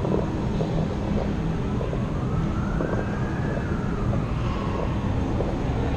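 A siren wailing slowly up and down, heard faintly over a steady low rumble.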